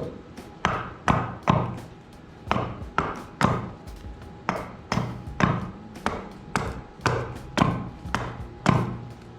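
Hatchet chopping a green hackberry leg: a regular series of sharp strikes, about two a second with short pauses between groups, as the leg is hewn down to size.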